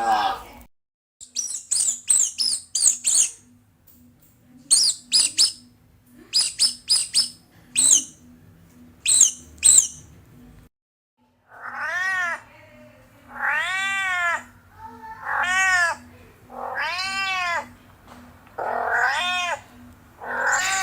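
High-pitched bird chirps in quick, short notes, then after a brief break a domestic cat meowing repeatedly, each meow rising and falling in pitch.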